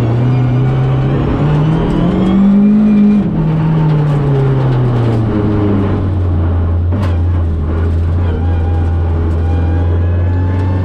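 Rally car engine running. Its pitch climbs for about two seconds, then falls back to a steady lower drone that holds for the rest of the time.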